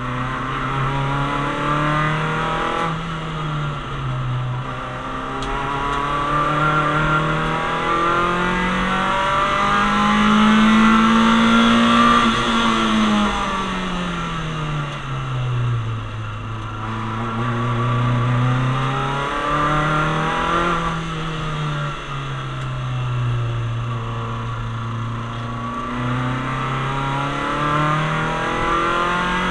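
Citroën Saxo VTS's 1.6-litre 16-valve four-cylinder engine driven hard on track, heard from inside the caged cabin. The revs climb through a run of upshifts to a long high pull about twelve seconds in, then fall away sharply and climb again through further gear changes.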